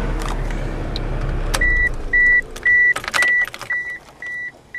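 A 1998 Ford Escort's engine running, then going quiet about a second and a half in, as it is switched off. The car's warning chime then beeps steadily, about twice a second, and a few clicks and knocks of the door and controls sound alongside it. The chime is the reminder that the key is still in the ignition.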